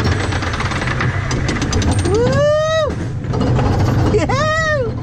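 Flying Turns wooden trough coaster car running with a steady low rumble and a fast clattering over the first couple of seconds. A rider lets out two rising-and-falling whoops, the first about two seconds in, the second near the end.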